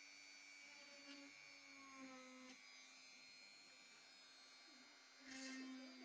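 Faint steady whine of a small electric mini drill (rotary tool) motor running, its pitch dipping slightly now and then as it takes load. A short scraping burst comes near the end.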